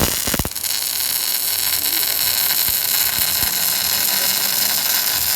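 Steady loud hiss from a robotic arc-welding cell, following a run of rapid crackling pulses that stops about half a second in.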